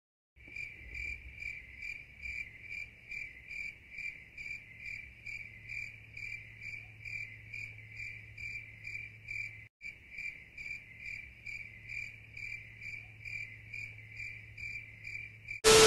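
Cricket chirping sound effect: evenly repeated chirps about two a second over a low hum, the stock 'crickets' gag for an awkward silence. The chirping breaks off briefly about ten seconds in, and a short loud burst of noise comes right at the end.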